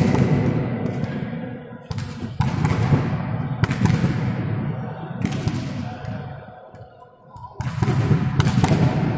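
Volleyballs being spiked and smacking onto the hard indoor court floor: several sharp hits a second or two apart, each with a ringing echo in the large hall, over a murmur of voices.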